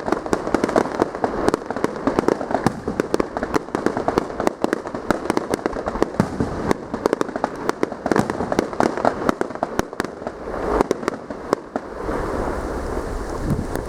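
Fireworks display: dense, rapid crackling bangs, many per second. About twelve seconds in, the crackling thins out and a steady low rumble takes over.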